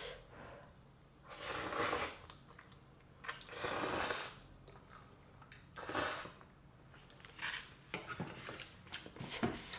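Black bean noodles slurped off chopsticks and from a small bowl in three long, loud slurps. After that come short smacks and light clicks of chopsticks on dishes.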